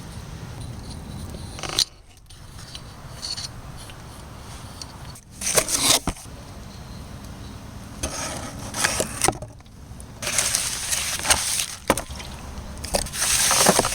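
Several short bursts of scraping on metal, with a few clicks between them, as rust and dirt are cleaned off a car's front brake hub.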